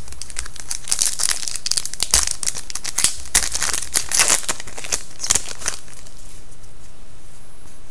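Crinkling plastic trading-card packaging being handled: a dense run of sharp crackles for about six seconds, then it dies down.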